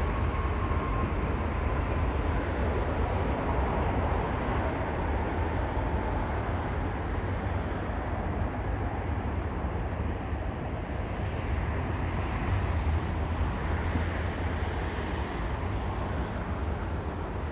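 Steady rumble of jet aircraft noise across an airfield, with a faint whine that slides down in pitch over the first several seconds.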